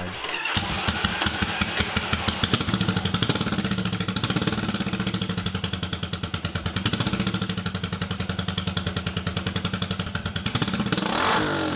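1983 Yamaha Virago XV750's air-cooled V-twin engine running at a steady idle with an even, pulsing beat, with a brief change in pitch near the end.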